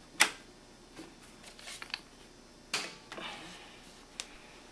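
Metal shield plate being fitted onto a laser printer's side frame: a sharp click just after the start, another about two and a half seconds later, and a few faint taps between.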